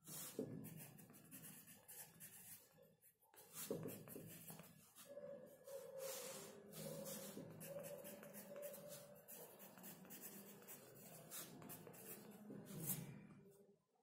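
Pencil scratching on sketchbook paper in short, quick strokes as words are written out by hand.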